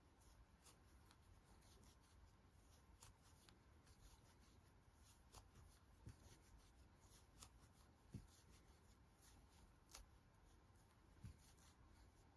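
Near silence with faint rustling of yarn and scattered light ticks of a metal crochet hook as single crochets are worked into a magic circle, with a couple of soft low knocks in the second half.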